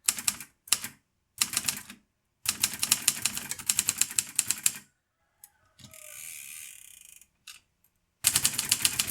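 Manual typewriter being typed on: typebars clacking against the platen in short groups of key strikes, then a fast run of about seven strikes a second. A brief scraping sound comes about six seconds in, and another run of key strikes follows near the end.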